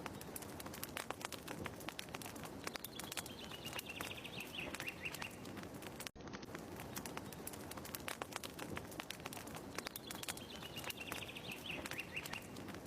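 Fireplace crackling with dense, irregular pops and snaps, with a bird giving a short falling trilled call twice. The ambience is a loop that repeats about every seven seconds, with a brief dropout where it restarts.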